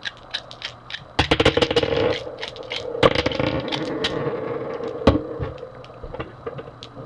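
Cartridges being thumbed out of a .357 SIG Glock magazine one after another, with metallic clicks and rattling as the rounds slide off the feed lips and clatter down, a quick run of clicks about a second in and scattered single clicks after.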